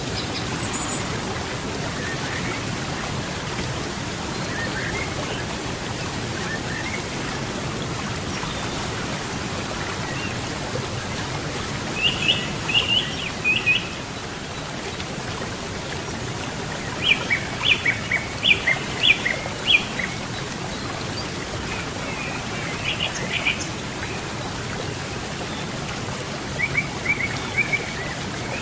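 A river rushing steadily, with a bird singing short bursts of quick, high chirps every few seconds over it.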